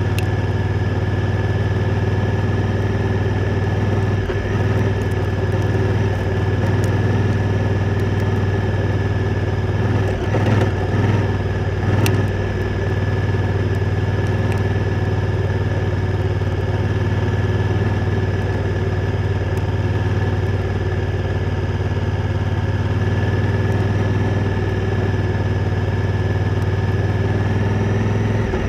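Honda Africa Twin motorcycle engine running at a steady, low engine speed with little change in throttle, a faint steady whine above it. A single sharp click about twelve seconds in.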